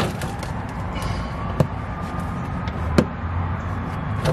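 Plastic wheel-well liner of a BMW E90 being pulled and flexed by hand, with three sharp clicks about a second and a half apart as its stuck plastic push-rivet clips are forced out, over a steady low rumble.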